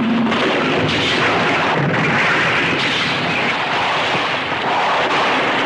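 Loud action-scene sound effects from a film soundtrack: a continuous roar of explosion-and-gunfire noise with a few sharp cracks.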